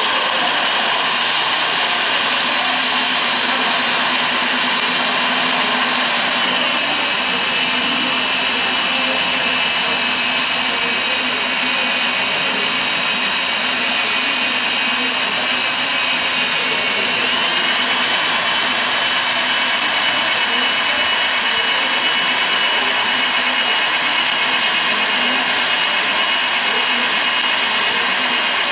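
Bosch 850 W spade-handle drill running without a break, its bit boring through a metal plate: a steady, loud motor whine. The whine drops in pitch about six and a half seconds in and rises back about seventeen seconds in.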